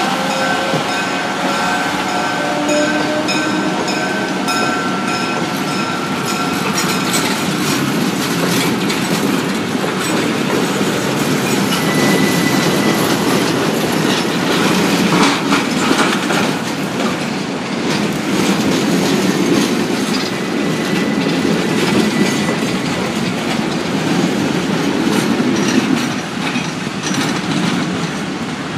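A center-cab switcher locomotive pulling a string of flatcars slowly past: a steady rumble of the wheels with repeated clicking over the rail joints. A high wheel squeal sounds over the first several seconds, then fades.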